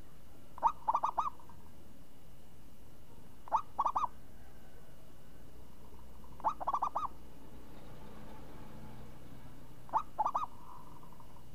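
Zebra dove (perkutut) cooing: four short phrases about three seconds apart, each a quick run of four or five clipped coos.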